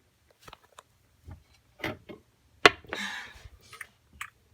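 Scattered light clicks and taps of small plastic toys being handled. The loudest is a sharp click a little before three seconds in, followed by a short scraping rustle.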